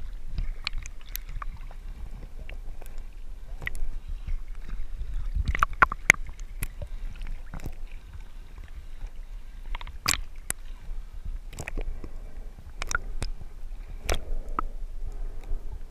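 Water heard underwater, muffled: a low rumble of moving water with irregular sharp clicks and crackles scattered throughout.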